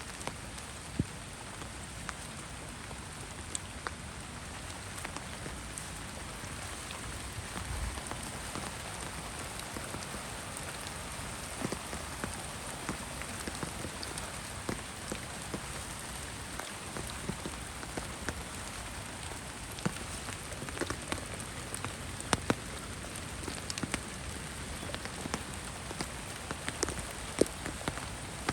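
Heavy rain falling steadily, with many separate drops striking sharply close by.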